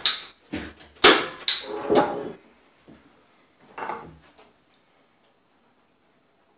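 Staple gun firing staples through upholstery fabric into a wooden chair seat board: three sharp shots about half a second apart, starting about a second in, and a fainter one near four seconds.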